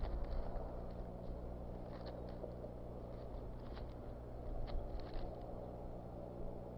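Twigs and sticks crackling and snapping as bald eagles shift about and work the nest material. The crackles are scattered, bunched around two and five seconds in, over a steady low hum.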